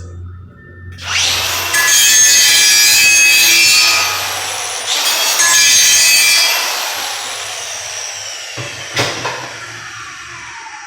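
Angle grinder spinning up and grinding steel to clean up the metal before welding, let off and squeezed again about four seconds in, then winding down with a slowly falling whine. A sharp knock about nine seconds in.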